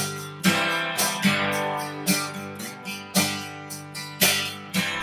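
Background music: strummed acoustic guitar chords, each struck sharply and left ringing, about one strum a second.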